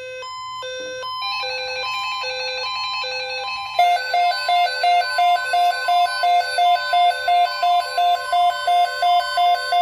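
Several electronic weather-alert tones overlap as a severe thunderstorm watch is toned out. First comes a two-note beeping that alternates about twice a second. About a second in, a steady tone near 1 kHz joins it, typical of the NOAA Weather Radio alert tone, together with other sustained tones; from about four seconds in, a fast pulsing beep repeats two to three times a second.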